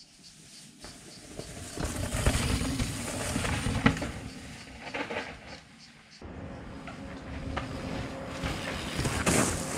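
Mountain bikes riding past on a dirt singletrack: tyres rolling over dirt and stones with the bike rattling, rising as a rider comes close and fading as he rides away, with a sharp click near the loudest point. The sound cuts abruptly and a second rider approaches, louder near the end.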